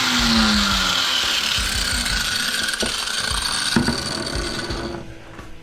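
Power grinder grinding the head off a fastener on an aluminium high jump stand, with a couple of knocks about three and four seconds in. The grinding dies away near the end.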